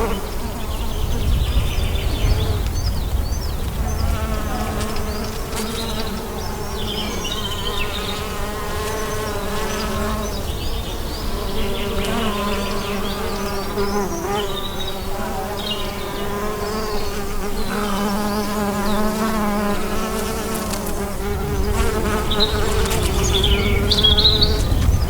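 Bees buzzing close by, a steady drone that wavers slightly in pitch, with birds chirping now and then over it, most busily near the start and again near the end.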